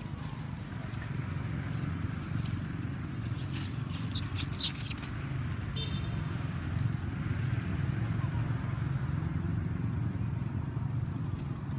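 Steady low rumble of a running motor vehicle engine. About four seconds in comes a quick run of four or five loud, sharp crackles, and a brief high chirp follows shortly after.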